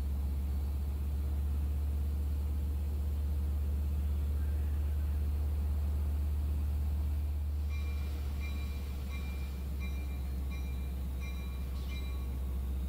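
Long Island Rail Road DE30AC diesel locomotive running as it approaches slowly, a steady low engine drone. From about eight seconds in, a bell rings in evenly spaced strokes, roughly three every two seconds.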